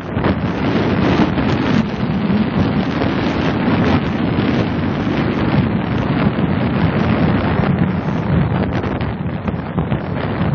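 Strong, gusty wind buffeting the microphone.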